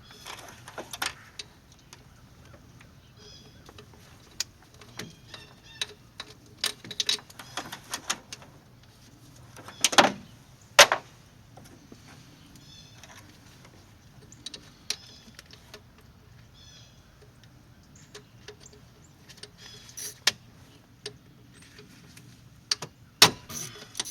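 A 1/4-inch drive ratchet and socket clicking and clanking on tight throttle body bolts, in scattered clicks with two louder knocks about ten seconds in. A quick run of ratchet clicks starts near the end.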